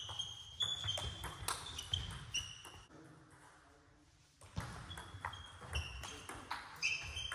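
A table tennis rally: the ball clicks in quick succession off the bats and the table. There is a lull of about a second and a half a little past the middle, then another rally starts.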